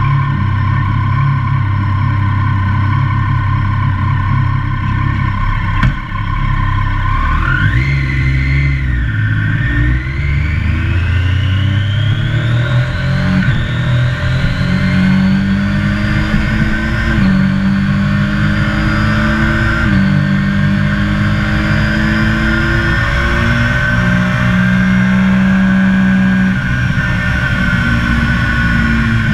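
Triumph sports motorcycle engine heard from on board, running steadily at low revs, then accelerating hard from about seven seconds in. The pitch rises and drops back at each of several upshifts.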